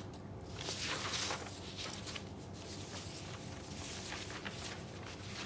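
Sheets of paper rustling in a few irregular bursts as they are leafed through by hand, searching for a document.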